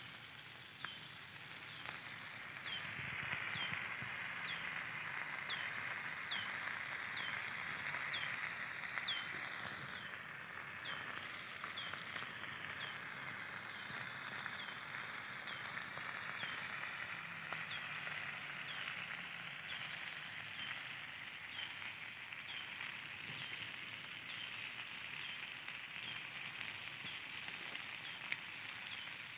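Forest ambience: a steady high hiss, with a short falling chirp repeating a little more than once a second, fading out partway through and returning later.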